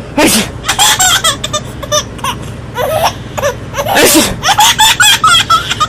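Baby laughing in repeated high-pitched peals, broken by two sharp breathy bursts, one just after the start and one about four seconds in.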